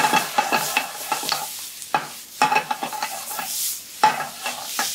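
Beef strips, onion, peppers and tomato sizzling in a frying pan over high heat, with repeated scrapes and clacks of a metal utensil stirring and tossing them.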